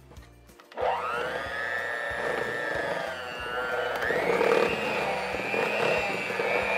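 Electric hand mixer switched on about a second in, its motor whining as the beaters work stiff buttercream of butter, cream cheese and icing sugar. It steps up to a higher pitch about four seconds in as the speed is raised.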